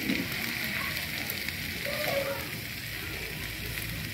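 Torn parotta with onion and tomato sizzling in oil on a dosa griddle, a steady frying hiss, as a metal spatula turns it, with a few faint scrapes and ticks.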